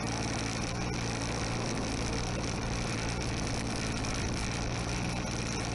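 RC model aircraft's engine running steadily on the ground, a constant even drone with no change in speed.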